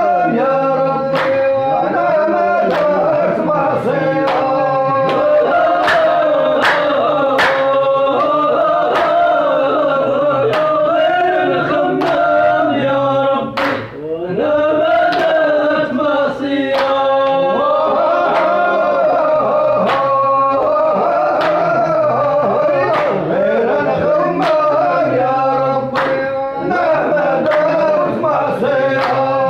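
Group of men singing a traditional chant together, keeping time with steady, evenly spaced hand claps.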